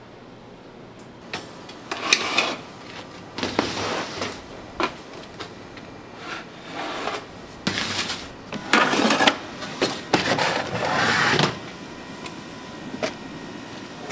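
Irregular scraping strokes and a few short, sharp knocks of utensils being worked on cookware.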